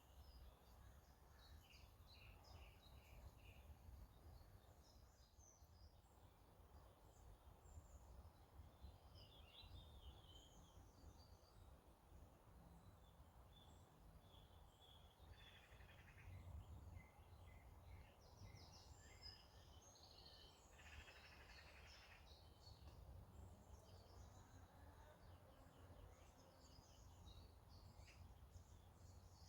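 Faint wild birdsong: short scattered chirps and calls from several birds, over a steady low rumble of background noise.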